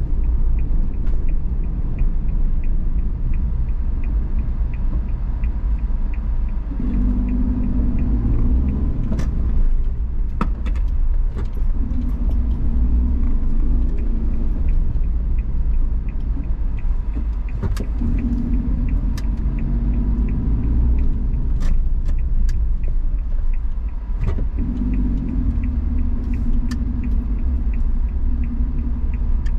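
Car driving through city traffic, heard from the car itself: a steady low rumble of road and engine, swelling and easing every few seconds, with light clicks and rattles scattered through it.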